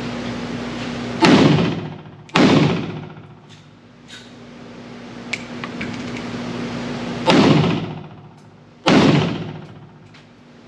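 Four gunshots from a 7.62x39 AK-pattern pistol, a Pioneer Arms Hellpup, fired as two pairs about a second apart with a pause of some five seconds between the pairs, each shot trailing off in an echo. A steady hum runs between the shots.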